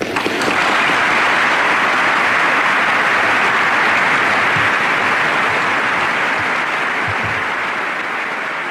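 A large audience applauding steadily, a dense sustained clapping that eases off slightly near the end.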